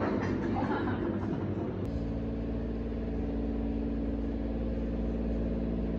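Busy cafe background noise for about two seconds, then an abrupt change to a vehicle engine running steadily close by: a low rumble with an even, unchanging hum.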